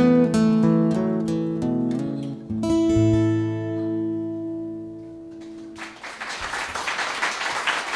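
Two steel-string acoustic guitars playing the last bars of a folk song, ending on a final chord that rings out for about three seconds. An audience starts applauding about six seconds in.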